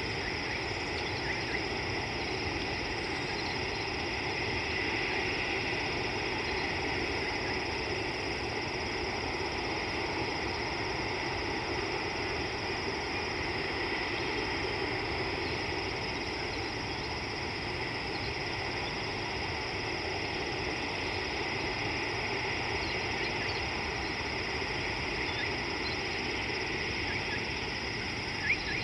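Steady outdoor ambience at a riverbank: an even hiss with a constant high-pitched drone, faint scattered chirps, and one short sharp chirp near the end.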